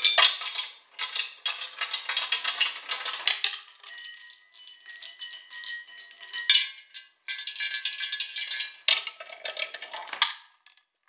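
Small hard objects clattering, clicking and clinking through a homemade chain-reaction machine, in several dense runs with short pauses between them, stopping just before the end.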